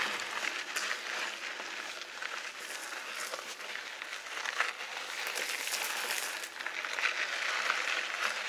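Mountain bike being ridden over a rocky slickrock trail: a steady rush of tyre and trail noise with scattered sharp clicks and rattles from the bike.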